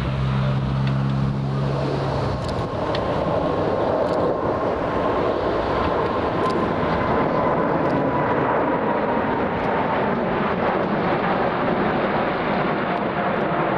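Boeing 747-8 freighter's four GEnx-2B turbofans at takeoff thrust as it climbs out overhead: a loud, steady jet roar with a whining tone that slowly falls in pitch. A low hum underneath fades out about two seconds in.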